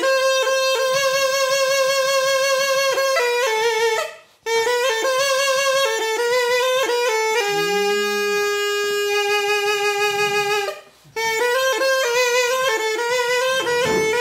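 A small wind instrument held to the mouth in cupped hands plays a folk melody: long, wavering held notes with quick ornamented turns, broken twice by short pauses for breath.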